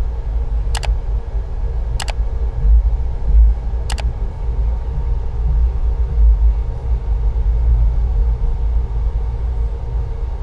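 Train running, a steady low rumble, with three short sharp clicks in the first four seconds.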